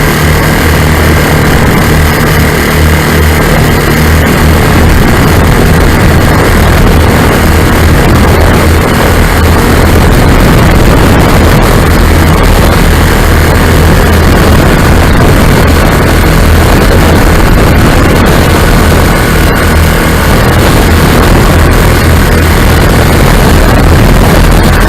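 Lazair ultralight aircraft's engines running steadily in flight, under heavy wind rush on the microphone.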